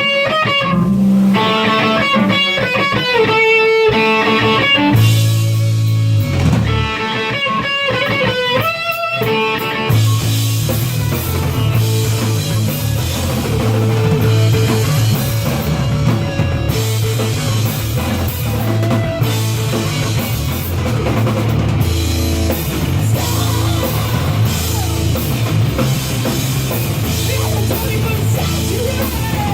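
Rock band playing live and loud: about ten seconds of electric guitar notes with a low held bass note, then drums and bass come in and the full band plays on.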